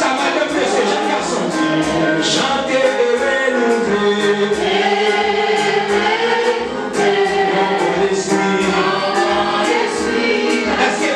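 Church congregation singing a worship hymn together in many voices over a steady beat of about two pulses a second.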